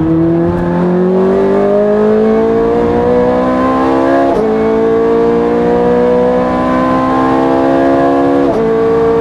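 Ferrari race car's engine at full throttle, heard from inside the cockpit, its pitch climbing steadily through the gears. Two quick upshifts drop the revs, one about four seconds in and one near the end, and each time the pitch starts climbing again.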